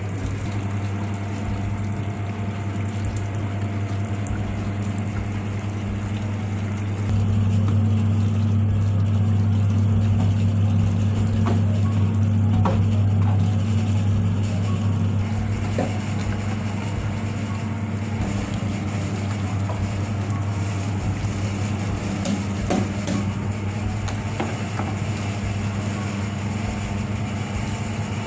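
Electric coconut grating machine running with a steady low hum, grinding grated coconut. The hum gets louder from about seven seconds in for several seconds while coconut is being ground, then settles back.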